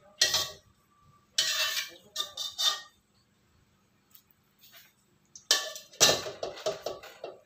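Kitchen dishes and utensils clinking and clattering as a bowl of stir-fried water spinach is handled: a few short bursts, a quiet pause of about two seconds, then a longer, louder run of clatter near the end.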